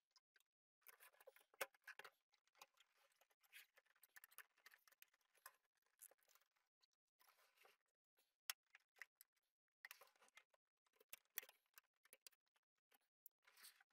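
Faint handling noise of a plastic computer case being fitted back together on a wooden table: scraping and rustling in short spells, with scattered sharp clicks and knocks, two close together past the middle.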